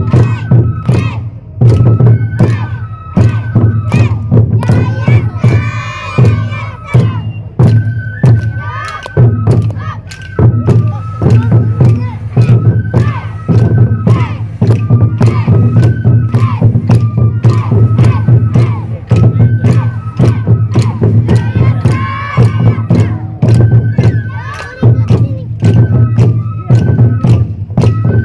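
Festival taiko drums on a lantern float beating a quick, steady rhythm, with a high flute melody over them and a crowd of children shouting dance calls. The shouting swells twice, about five seconds in and again near twenty-two seconds.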